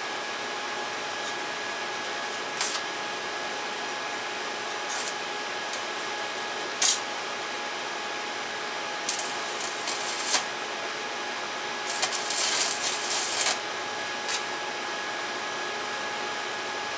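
Stick welding arc from a 1/16-inch rod at 25 amps tacking thin 1.6 mm exhaust pipe: several short crackling arc strikes, the longest about a second and a half, about twelve seconds in. A steady hum with a faint whine runs underneath.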